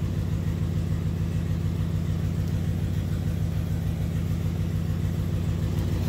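A Chevrolet 8.1-litre V8 idling with a steady, even low pulse. The engine is running rough, misfiring on cylinders 3 and 7 on bank 1.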